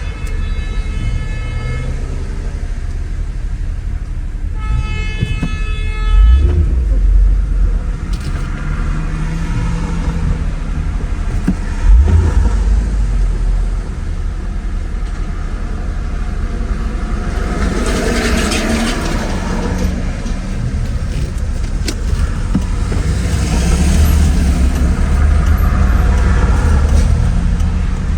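Mercedes-Benz R129 SL500 cruising at highway speed, a steady low road and engine rumble heard inside the cabin. A car horn sounds for about a second and a half around five seconds in.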